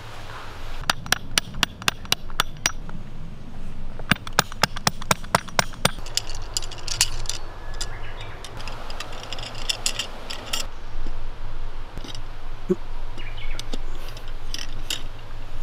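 Jointed metal camp-stand poles clinking and clicking as they are unfolded and fitted together: two quick runs of sharp clicks near the start, then lighter, scattered tapping and clinking.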